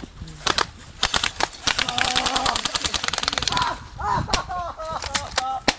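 Airsoft rifles firing: a few single shots, then a rapid full-auto burst of about a second and a half about two seconds in, then a few more shots.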